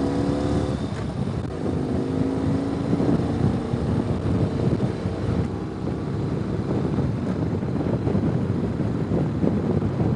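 Ural sidecar motorcycle's flat-twin engine running on the move, its note rising a little in the first second and again a couple of seconds later, under heavy wind buffeting on the microphone.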